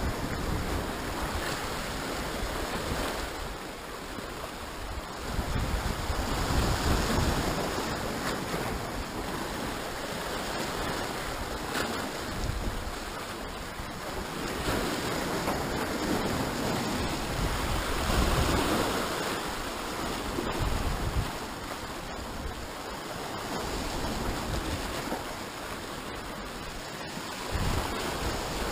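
Sea surf washing and breaking over shoreline rocks, swelling and easing with each wave every few seconds, with wind rumbling on the microphone.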